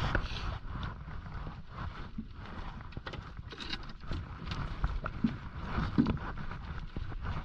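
Wind buffeting the microphone and water slapping against a small fibreglass boat's hull make a steady low rumble. Scattered clicks and knocks come from hands working a landing net, a lure and a fish on the deck.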